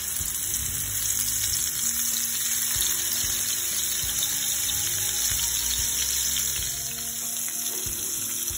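Hilsa fish steaks, coated in turmeric, chilli powder and salt, sizzling steadily in hot oil in a frying pan just after being laid in.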